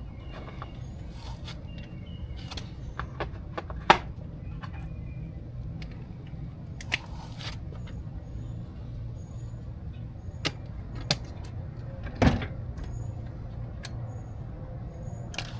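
Hand tools being handled: a few scattered sharp clicks and knocks, the loudest a thump near the end, over a steady low hum.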